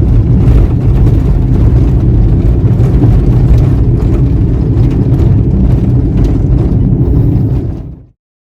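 A moving car's loud, steady low rumble of road and engine noise. It fades out quickly about eight seconds in.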